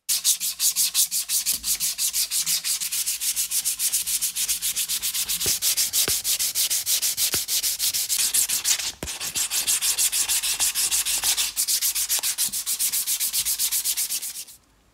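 A strip of abrasive pulled rapidly back and forth around a wooden axe handle by hand, shoe-shine style, sanding it smooth: a fast, even run of rasping strokes, with a short pause about nine seconds in.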